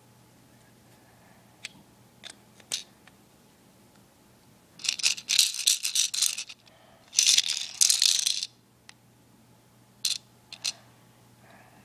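A homemade plastic shaker, a small tube put together with Lego pieces, rattling as it is shaken in two quick bursts about halfway through. A few single sharp plastic clicks come before and after the bursts.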